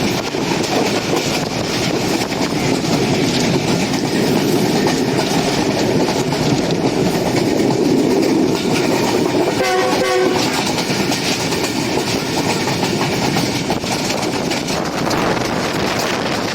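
Diesel-hauled passenger train running on the rails. The noise grows louder toward the middle, and the GE U20 locomotive's horn sounds briefly about ten seconds in.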